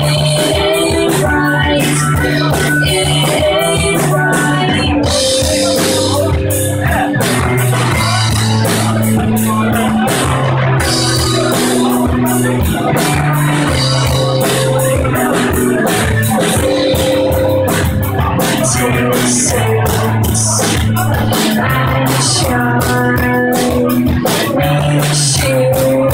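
Live guitar band playing a song: electric guitar, bass guitar and drum kit, with women's sung vocals, recorded on a phone.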